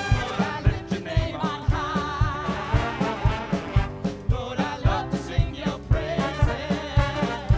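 Live big band playing a swing number: saxophones and trombones over a steady drum beat, with vocalists singing.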